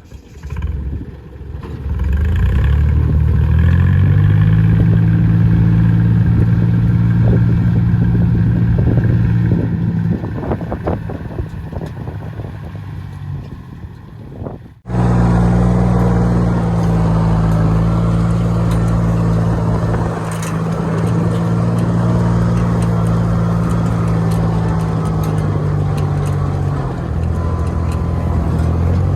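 A small engine starts about a second in and picks up speed to a steady run, then eases off. After an abrupt cut about halfway, it runs loud and steady, its pitch dipping briefly near the end.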